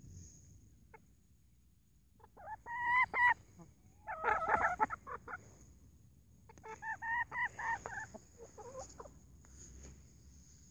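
Chickens clucking right at the phone's microphone, in three bouts of short, pitched calls about two, four and seven seconds in.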